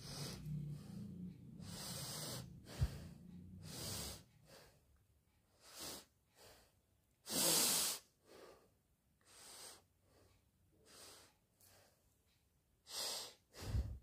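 A woman sniffing and breathing hard through her nose: about a dozen separate short sniffs, the strongest about halfway through. A brief knock about three seconds in.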